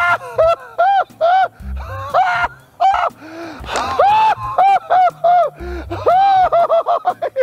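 A man's exaggerated, high-pitched falsetto laugh: a long run of whooping syllables, each rising and falling in pitch, two or three a second, with short breaks between runs.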